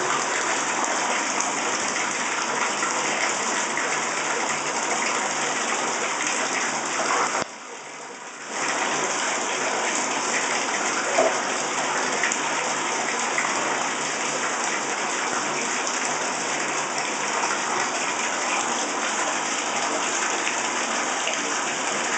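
Water running steadily into a bathtub. It drops away abruptly for about a second a third of the way through, then runs on as before.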